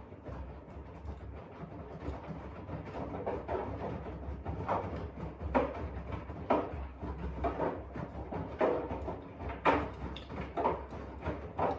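AEG 7000 Series washing machine in the main wash, its drum turning with a low rumble and the wet laundry and water sloshing about once a second.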